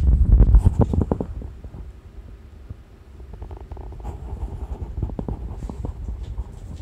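Loud rumbling handling noise on the microphone as the camera is swung round in the first second, then a run of light clicks and taps from the German shepherd and the cat moving at the food bowls on a wooden floor.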